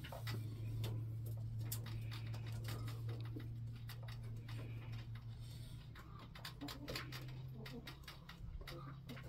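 Irregular light crackling and ticking of dry hay and fur as a hand digs through a rabbit nest box and picks up a baby rabbit, over a steady low hum.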